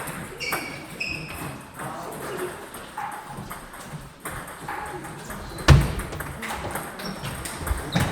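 Table tennis ball in play: a string of sharp clicks and short pings from ball on paddle and table, with a heavy low thud a little past halfway and another at the end.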